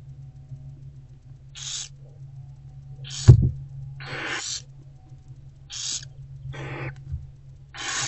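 Barn owlets hissing in short, breathy bursts, about six in eight seconds: the begging calls of nestlings being fed by their mother. A single loud thump comes about three seconds in.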